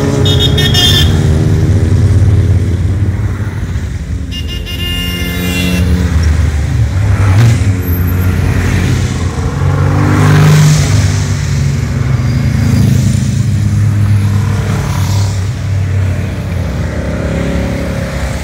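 A procession of motorcycles and a trike riding past one after another, their engines swelling and fading as each goes by. Two short horn toots sound near the start and again about four seconds in, and the loudest pass comes about ten seconds in.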